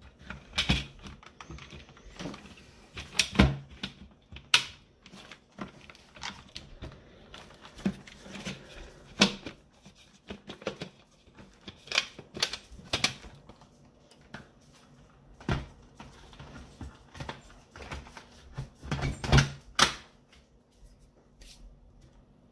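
Hard plastic parts of a Dyson DC50 vacuum cleaner clicking and knocking as they are handled and fitted back together, in irregular sharp clicks with a few louder knocks.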